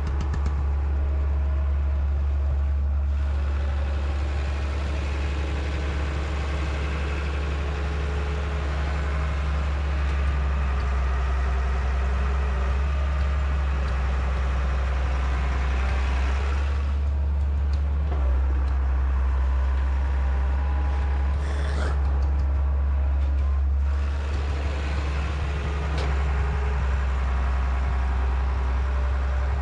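Diesel engine of a JCB excavator or backhoe loader running steadily with a deep, constant hum.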